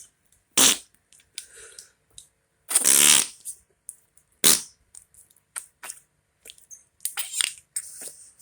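Noise putty squeezed in its toilet-shaped container, letting out a string of fart noises: a short one, a longer buzzing one about three seconds in, a few smaller squelches, and another flurry near the end.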